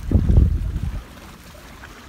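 Wind buffeting the microphone in a loud low gust through the first second, over the wash of sea waves on rocks.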